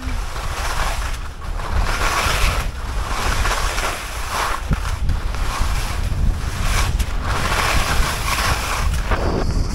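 Wind buffeting the camera microphone: a heavy low rumble under a rushing hiss that swells and fades about once a second.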